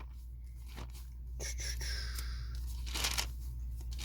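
Paper rustling and crinkling as it is handled, with sharp crackles about one second in and again near three seconds, over a steady low hum.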